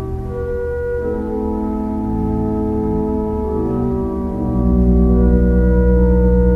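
Church organ playing slow, held chords, with a deep bass note coming in about halfway and the sound growing louder.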